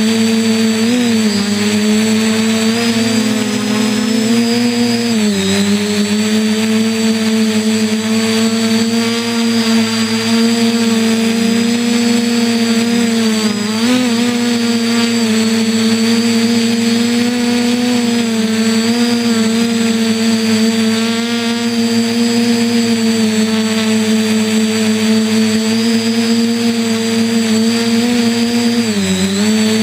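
Electric motors and propellers of an RC quadcopter, heard up close from the camera mounted on it: a loud, steady buzzing hum whose pitch dips and recovers briefly a few times as the throttle changes.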